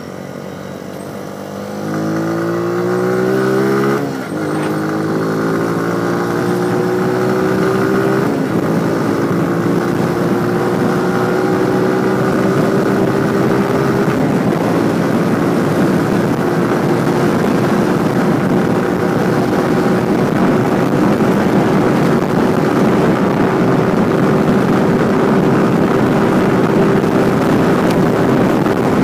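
Motorcycle engine accelerating through the gears: the pitch climbs, drops at a gear change about four seconds in and again about eight seconds in, then rises slowly and settles to a steady cruise. Wind rush grows as the bike gathers speed.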